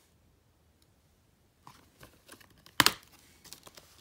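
Plastic Blu-ray keep case being handled and snapped open. After a quiet start come light clicks and rustling, then one sharp plastic snap about three seconds in, with a few smaller clicks after it.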